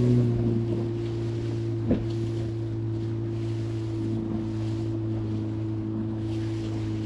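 A boat's outboard motor running steadily at low speed, a constant low hum, with wind and water noise swelling over it. A single knock about two seconds in.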